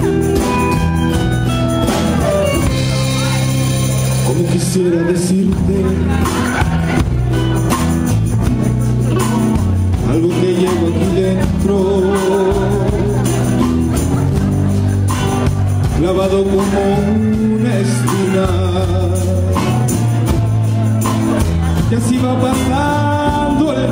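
Live band playing a dance number: bass guitar holding steady low notes under congas and a drum kit, with electric guitar and a small strummed string instrument carrying a wavering melody.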